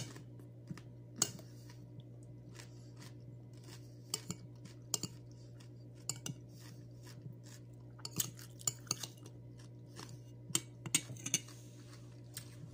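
A person chewing crisp cucumber slices, with many short crunches and clicks scattered through and a fork picking at the salad in a foil-lined dish. A steady low hum runs underneath.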